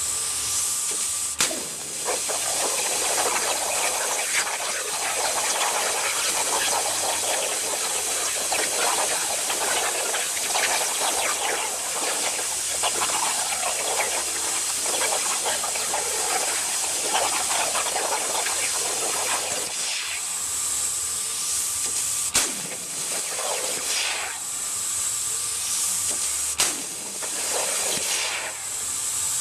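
CNC plasma cutter's torch hissing steadily as it cuts, broken by a few sharp clicks with brief dips in the hiss.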